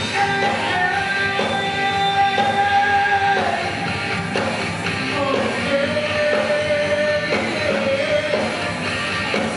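Live rock band playing with a singer, heard from the audience in a hall. The melody is carried in two long held notes.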